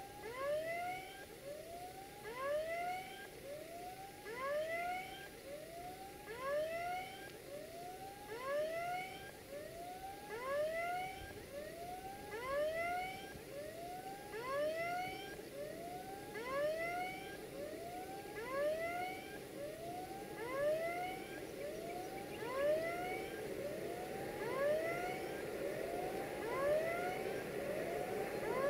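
Level crossing warning signal sounding a short rising electronic tone about once a second. In the last few seconds the rumble of the approaching Sulzer-engined LDE2100 (060-DA) diesel-electric freight locomotive grows beneath it.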